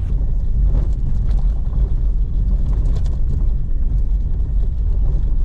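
Car driving slowly over a rough, rutted dirt track: a loud, steady low rumble of engine and tyres, with a few faint knocks as the car jolts over the broken surface.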